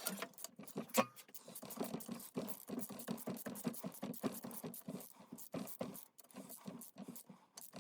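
Rapid, irregular metallic clicking and scraping from hand work on steel and cast-iron bench vise parts.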